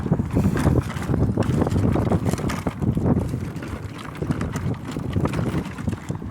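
4x4 vehicle driving off-road, a continuous low rumble with frequent knocks and rattles as it goes over rough ground, and wind buffeting the microphone.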